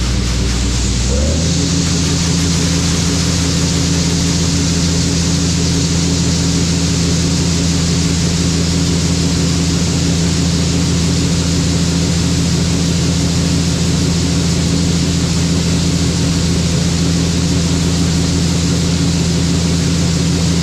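John Deere 9860 STS combine engine throttling up about a second in, then running steadily at high revs.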